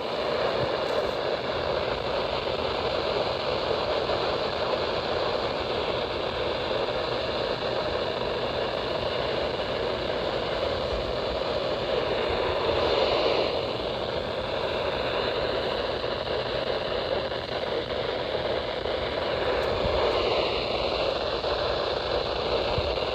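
Weather radio receiver putting out a steady hiss of static, with a faint thin whistle that wavers briefly near the end.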